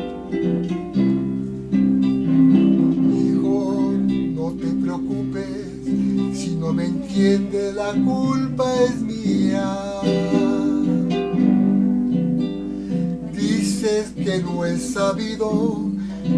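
Acoustic guitar music: sustained strummed chords under a plucked melody line, an instrumental passage of a ballad's backing track.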